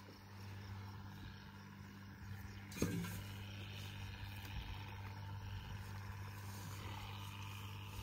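A pickup truck engine idling with a steady low hum. A single sharp click, like wire or a tool striking, comes about three seconds in.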